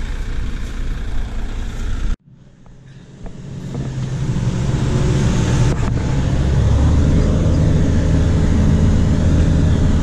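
John Deere 4240 tractor's diesel engine running steadily. About two seconds in it cuts out abruptly, then comes back heard from inside the cab, growing louder over several seconds and holding steady.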